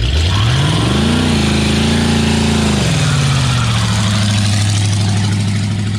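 1969 AMC Rebel's 290 V8 revving hard for a one-wheel-peel burnout, spinning a rear tire. The revs climb over the first second, hold for about two seconds, then drop back to a steady lower run.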